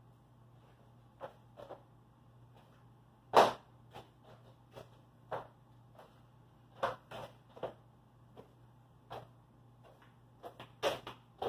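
Irregular knocks and clicks of someone working by hand around a plywood boat hull, the loudest one about three and a half seconds in and small clusters near the middle and the end, over a faint steady hum.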